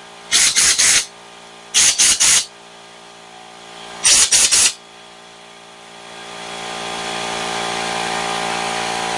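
Air blow gun firing short blasts of compressed air through a lawnmower carburetor's small plastic jet to clear its passages: three bursts of a few quick puffs each in the first five seconds. From about six seconds in, a steady mechanical running sound builds up and holds.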